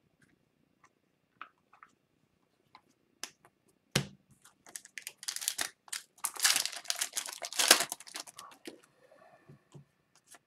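Light taps and clicks, a sharp knock about four seconds in, then a few seconds of crinkling and tearing as a foil Upper Deck hockey card pack is ripped open. Softer rustling of the cards being handled follows.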